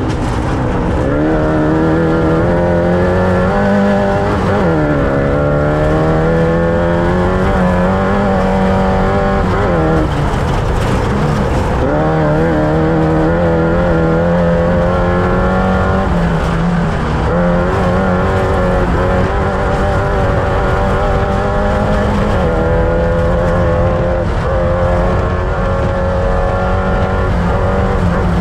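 Off-road race vehicle's engine running hard at race pace, its pitch climbing and dropping again and again as it accelerates and backs off, over a steady noise of wind and running gear.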